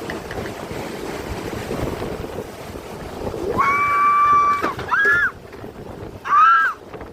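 Hurricane-force wind blowing hard across the microphone. Just over halfway through it gives way to high-pitched cries: one held for about a second, then two short rising-and-falling ones.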